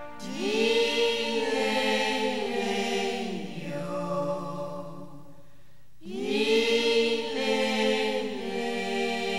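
Music from a Burmese song: voices sing two long chanted phrases, the second starting about six seconds in, over a sustained backing chord.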